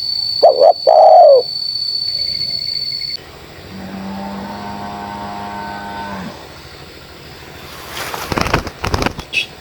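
Spotted dove cooing: a short phrase of two arching coo notes about half a second in. A steady low drone follows in the middle, and a few loud rustling bursts come near the end.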